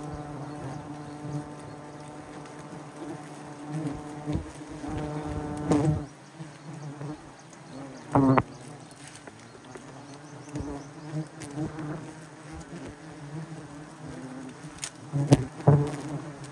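A swarm of honey bees buzzing around wild honeycomb being harvested. It is a steady, dense hum that swells louder for moments, most of all about eight seconds in and near the end.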